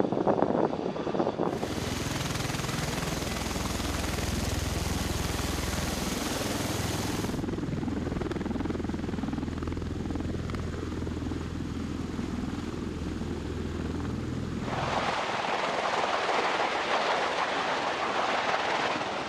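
Bell Boeing V-22 Osprey tiltrotor flying and hovering: a steady rush of turboshaft engines and proprotors over a low drone, heard across several edited clips that change about 1.5, 7.5 and 15 seconds in. In the first second or so there is a jet's noise.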